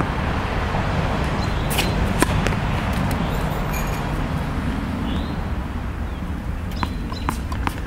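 A few sharp knocks of a tennis ball during serve practice: a louder single knock about two seconds in and a quick run of three or four near the end. All of it sits over a steady low background rumble.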